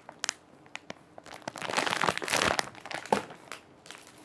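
Plastic packaging crinkling in irregular bursts as squishy toys are handled, loudest in the middle, with a few sharp clicks.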